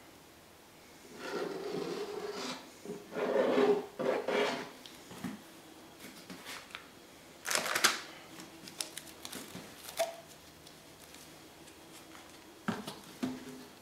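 Paint bottles and cups being handled on a worktable while acrylic is poured: rubbing and knocking noises in several short bursts, a cluster in the first few seconds, a sharper clatter about seven and a half seconds in and two small knocks near the end.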